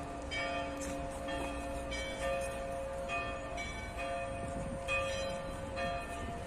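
Church bells ringing in a steady peal, about two strokes a second, their long hum carrying under each new stroke.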